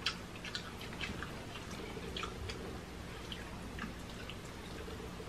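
A person eating instant cup noodles, slurping and chewing: scattered short, wet smacks and clicks of the mouth.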